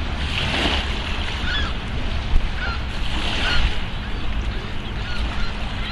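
Geese honking in a string of short calls over a loud, steady rumble of wind on the microphone.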